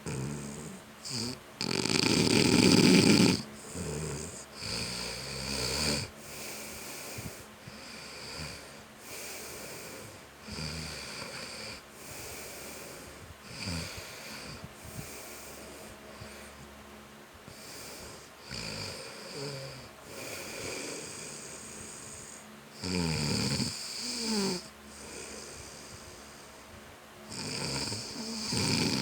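A man snoring in his sleep, one snore on each breath every one to two seconds. The loudest snore comes about two seconds in, and two more strong ones come near the end.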